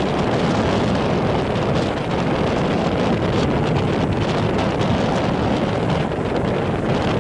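Strong onshore wind of about 10–11 m/s buffeting the microphone as a steady rumbling noise, over choppy sea and surf.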